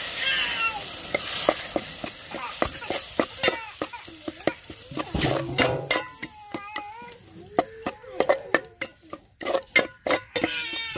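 A spatula stirring and scraping a thick onion-tomato masala with ground coconut paste in a hot pan, with many sharp clicks of the spatula against the pan. The mixture sizzles, loudest in the first second.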